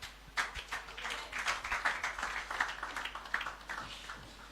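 A congregation clapping, quietly and unevenly, with many separate claps that fade out near the end.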